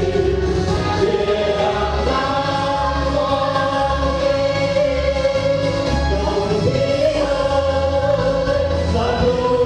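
A group of singers singing a song together over backing music, holding long notes above a steady bass beat.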